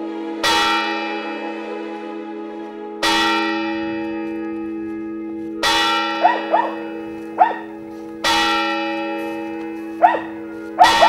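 A single large bell tolling slowly, five strokes about every two and a half seconds, each ringing on and dying away over a steady low hum. Short, sharp yelping calls break in between the later strokes.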